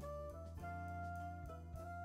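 Background instrumental music: held notes that shift pitch every half second or so over a steady low bass.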